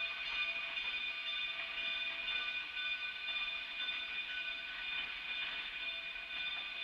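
Narrow-gauge passenger train cars rolling slowly past: a constant rushing noise with steady high ringing tones that fade and come back.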